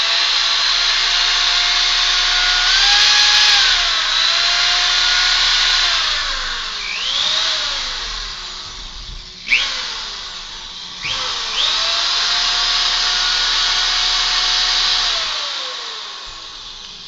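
Loud electric motor running with a high whine that sags and recovers in pitch. After a click about nine and a half seconds in it winds down, then spins up again with a rising whine a second and a half later, and fades toward the end.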